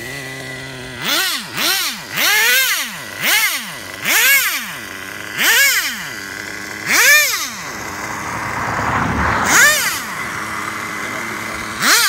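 Traxxas Jato 3.3's TRX 3.3 two-stroke nitro engine idling and being blipped, about nine short revs that rise and fall back to idle, the longest a slow climb just before the tenth second. The car is being tested for its carburetor tune.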